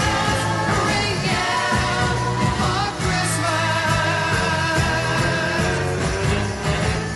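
A pop-style song: singing over a band accompaniment with sustained bass notes.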